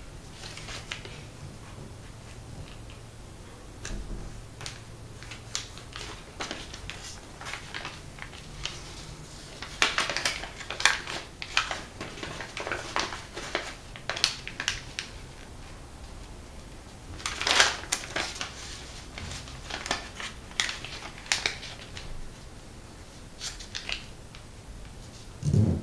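Sheet of origami paper rustling and crinkling in irregular short bursts as it is folded and creased by hand against a table. The bursts are busiest through the middle, with the loudest crinkle about two-thirds through and a dull thump near the end.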